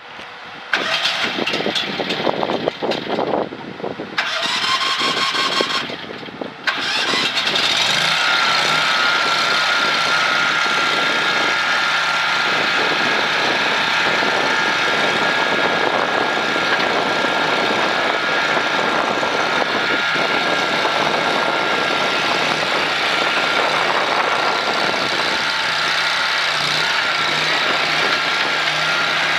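Mini skid steer engine being cranked for several seconds, with uneven starter noise. It catches about seven seconds in, its pitch rises briefly, and it settles into steady running with a constant high whine over it.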